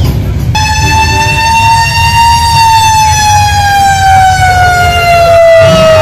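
A siren starts abruptly about half a second in and holds one long wail that rises slightly and then slides slowly down in pitch, over the low rumble of cruising car engines.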